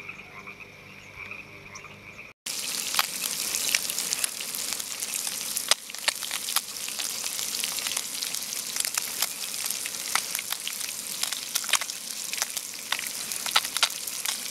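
Faint steady calling of frogs at dusk for about two seconds, then an abrupt cut to bass fillets frying in oil in a pan: a steady sizzle, louder, with frequent sharp pops and crackles of spitting oil.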